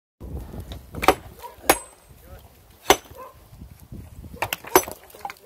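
Sharp strikes of a metal tool on rock, six in all at irregular intervals, the first about a second in and a quick cluster near the end, some with a faint metallic ring; men's voices murmur in between.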